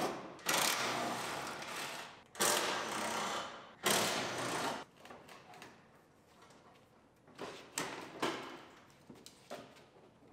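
Impact wrench hammering in three bursts of one to two seconds each, removing the fender bolts, followed by a few faint knocks of parts being handled.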